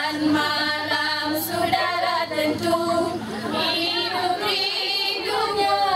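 A group of women singing a nasyid (Malay Islamic devotional song) together into a microphone, the voices holding long notes and gliding between them.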